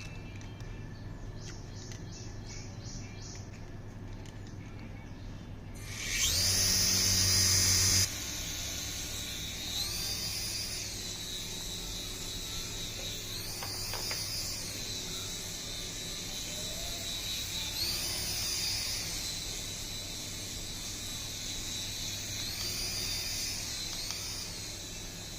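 Small electric motors of a mini RC helicopter whining as the rotors spin, the pitch rising and falling every few seconds. A louder stretch of about two seconds comes about six seconds in.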